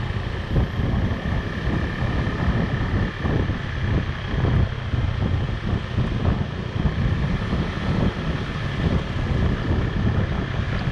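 Wind buffeting the microphone of a moving motorbike, with the bike's engine running underneath in a steady, unbroken rumble.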